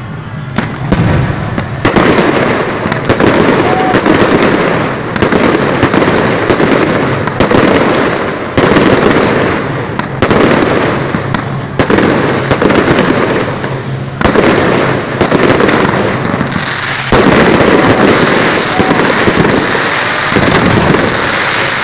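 Aerial fireworks display close overhead: shells bursting about once a second, each followed by dense crackling, in a near-continuous barrage.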